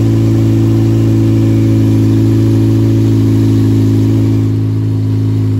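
Acura RSX Type-S's 2.0-litre four-cylinder engine running at a steady speed, slightly quieter for the last second or so.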